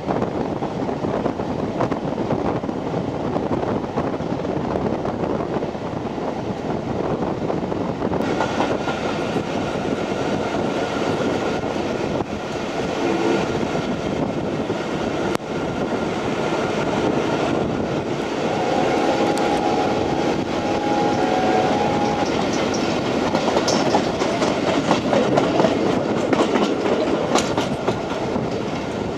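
Passenger coach of a steam-hauled train running along the line, heard from an open window: continuous rumble and rush of the wheels on the rails, with clickety-clack over rail joints. A chord of steady tones sounds for a few seconds past the middle.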